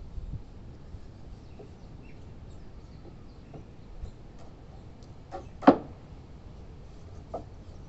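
Wooden bench parts knocking together as they are handled and fitted: one sharp wooden knock about two-thirds through, a softer knock near the end, and a few faint clicks between.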